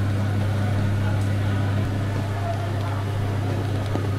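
A steady low electrical hum from kitchen machinery, unchanging throughout, with a few faint clicks.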